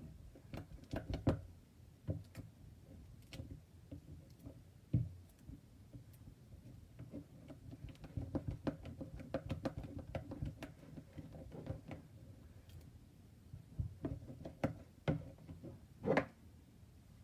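Silicone spatula stirring thick glue for slime in a ceramic bowl: irregular knocks, taps and scrapes of the spatula against the bowl, with a louder knock about a second in, another around five seconds, and a last one near the end.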